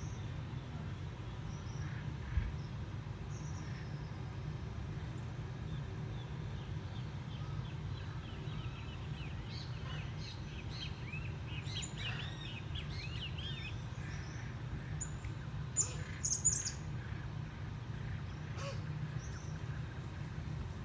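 Birds calling with short, quick chirps, thickest in the middle and with a few sharp high chirps a little later, over a steady low hum. A single dull thump comes a couple of seconds in.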